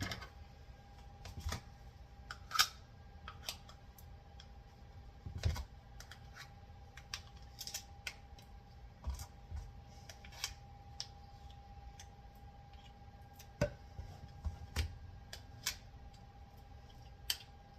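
Irregular small clicks and taps of kitchen utensils and packaging while a half cup of butter is cut and measured, over a faint steady hum.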